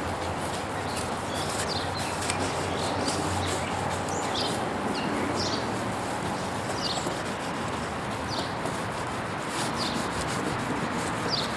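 A half lemon coated in baking soda scrubbed back and forth over a cloudy plastic car headlight lens, a steady, continuous rubbing.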